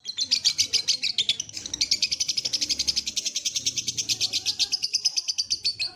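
Lovebird chattering in a rapid, continuous run of high chirps: the long 'ngekek' song.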